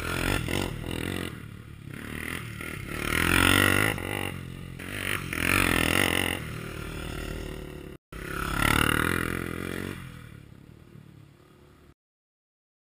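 Engine revving in three rising and falling swells, rough and growling, with a brief cut-out about eight seconds in; it fades away and stops near the end.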